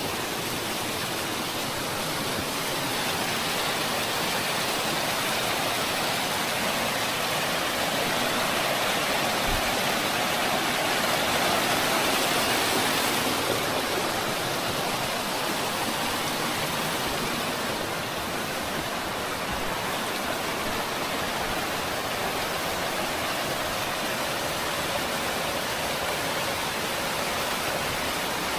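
Mountain waterfall rushing steadily, a dense even roar of falling water that swells slightly midway.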